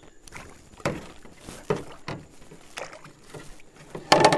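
Scattered knocks and clunks of a tripod and camera gear being handled in a canoe, with a louder clatter near the end.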